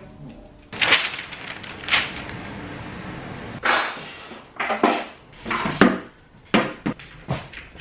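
Knocks and clatter of metal clothing-rail frame parts being handled and set down against a wooden shelf and floor during assembly, about eight separate hits, several of them in quick pairs in the second half.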